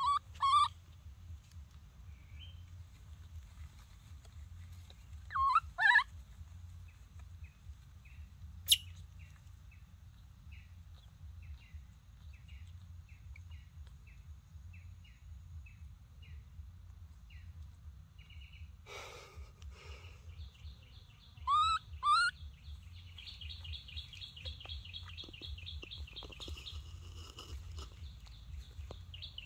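A baby monkey giving high, sliding cries in quick pairs, three times: at the very start, about six seconds in and about twenty-two seconds in. Between them comes a run of short, faint high chirps, and from about twenty-two seconds on a fast, steady high trill.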